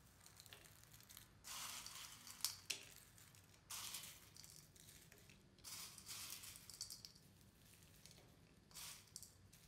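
Crunchy fried namkeen snack mix rustling and crackling as fingers dig into a plastic bowl and scatter handfuls onto plates, in four short bursts.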